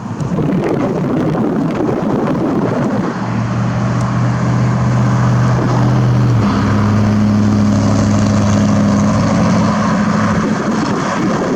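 Car engine running close by, a steady hum that starts about three seconds in and drops slightly in pitch about halfway through.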